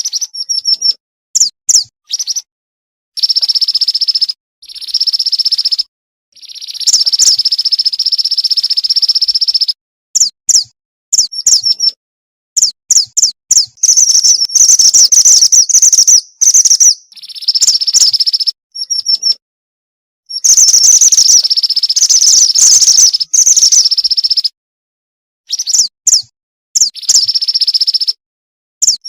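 Female mantenan gunung (mountain mantenan) bird calling: rapid high chirps and longer sustained trills in bursts, some several seconds long, broken by short complete silences.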